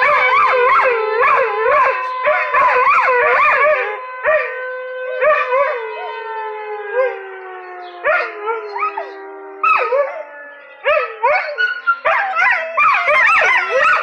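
Two Vizslas howling in wavering, rising-and-falling cries along with a siren. The siren's steady tone holds, then slowly drops in pitch and fades from about four seconds in. Near the end the howls break into short, quick yips.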